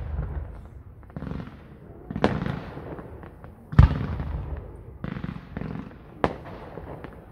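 Aerial fireworks display: three sharp shell bursts, the loudest about halfway through, with stretches of crackling noise between them.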